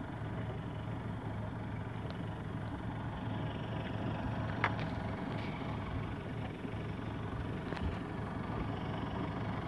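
Fishing boat's engine running steadily with an even low hum, and a single brief sharp click a little under five seconds in.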